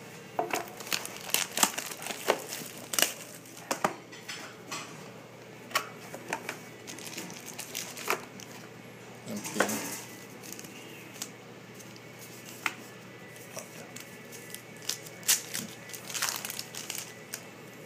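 Crinkling, crackling and tearing of plastic wrap and foil card packs as a sealed Panini Titanium trading-card box is unwrapped, opened and a pack torn open. The sound comes as irregular sharp snaps and rustles.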